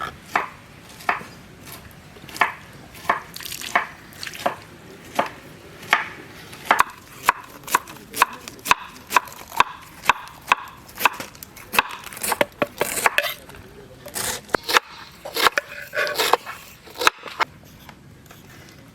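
Knife chopping food on a cutting board: a run of sharp, evenly paced strokes, about one or two a second, that quicken for a few seconds midway and stop near the end.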